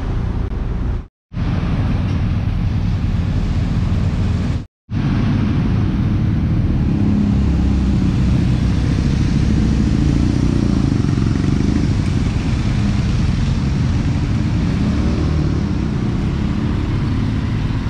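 Steady low rumble of motor-vehicle noise. It cuts out abruptly twice, briefly about a second in and again near five seconds in.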